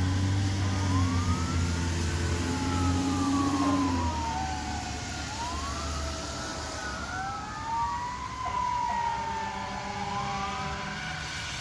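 Federal Q2B mechanical sirens on fire engines winding up and down in overlapping wails, with a heavy truck engine's low rumble that fades out about halfway through.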